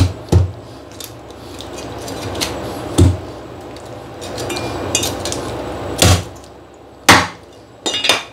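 Chinese cleaver chopping a sea bass head in half on a wooden chopping block: about seven sharp knocks at irregular gaps, two of them in quick succession near the end, with softer scraping between.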